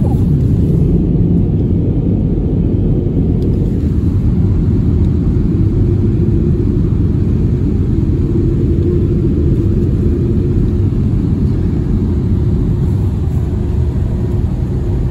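RYKO UltraSonic 2001 overhead car wash running: a loud, steady low rumble, with a faint hum coming in about six seconds in and fading a few seconds later.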